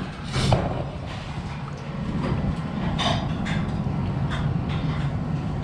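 Restaurant room noise: a steady low hum with scattered short clinks and clatter.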